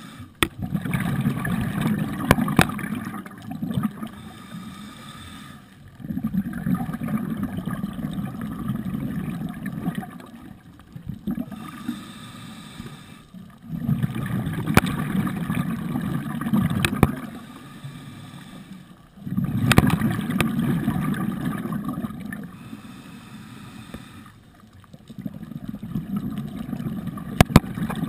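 Scuba diver's breathing underwater: five long exhalations, each a rush of bubbles from the regulator lasting a few seconds, with quieter inhalations between them in a slow, even rhythm. A few sharp clicks sound over it.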